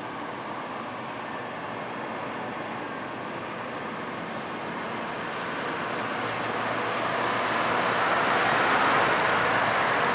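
Engine of a large farm machine running steadily and drawing closer, growing louder in the second half.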